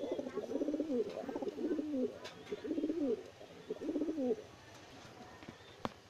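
Homing pigeon cooing: a run of rolling, wavering coos that stops about four seconds in, followed by a single sharp click near the end.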